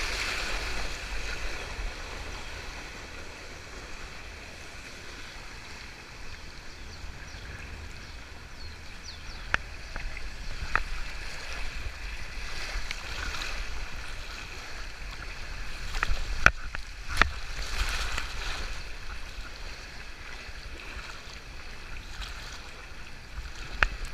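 Water rushing and splashing down a body water slide around a rider sliding feet-first, heard close up from a body-mounted action camera. Several sharp knocks cut through it, the two loudest under a second apart about two-thirds of the way through.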